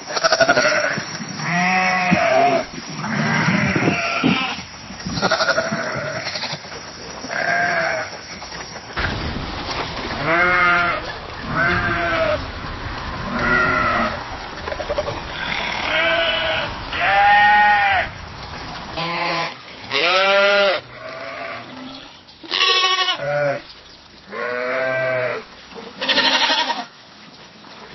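Sheep bleating: a string of separate bleats, one every second or two, from several recordings one after another. The background changes about 9 and 19 seconds in.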